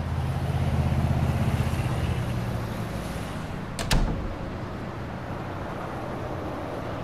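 Motor vehicle engine rumbling close by, swelling and then fading over the first few seconds as it passes. A single sharp knock comes just before four seconds in.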